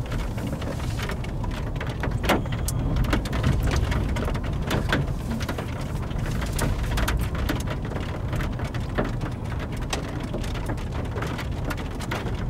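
Raindrops hitting a car's roof and glass as many irregular sharp taps, over a steady low rumble.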